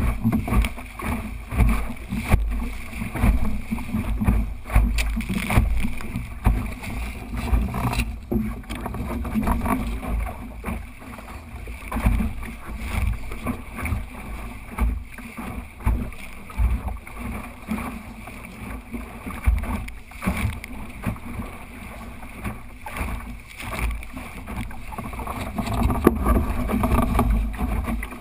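Water rushing and slapping unevenly against the hull of a small sailing dinghy under way, with wind gusting on the microphone.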